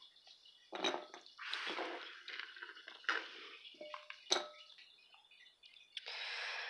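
Chunks of milk chocolate scooped by hand off a plastic cutting board and dropped into a glass bowl: scraping and scuffling, with a few sharp clinks of pieces hitting the glass.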